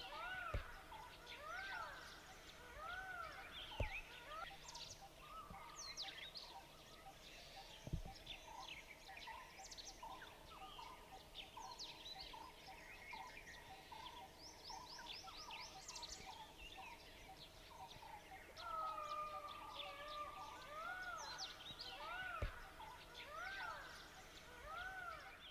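Wild birds calling: a repeated arched note about once a second near the start and again in the last part, quick high chirps throughout, and a run of short even notes in the middle. A few sharp clicks stand out.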